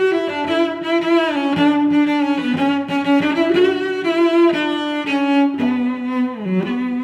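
Background music: a bowed-string melody of held, wavering notes.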